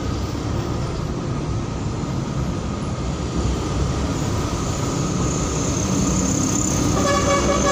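Steady rumble of engine and tyre noise while travelling in slow city traffic, with a vehicle horn starting to sound near the end.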